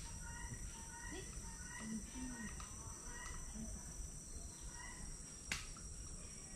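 Faint rainforest ambience with birds chirping in short repeated notes over a steady high thin tone. One sharp click sounds about five and a half seconds in.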